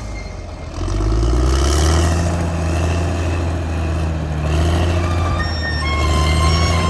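Caterpillar D6R XL bulldozer's diesel engine working under load. It eases off briefly at the start, then picks up sharply under about a second in and runs heavily.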